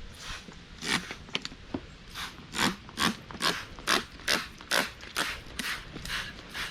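A brush scrubbing upholstery or carpet in quick, even back-and-forth strokes, about two to three a second.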